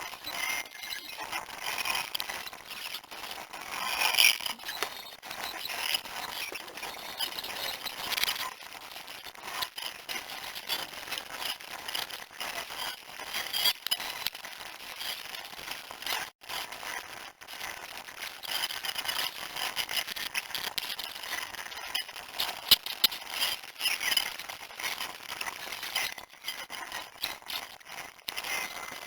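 Workshop sounds of tools and engine parts being handled, sped up sixty times into a continuous high-pitched, squeaky chatter of clinks and scrapes.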